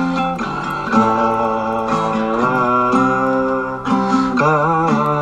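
Guitar-led song music: chords ringing and changing about once a second, with a melody line that bends in pitch near the end.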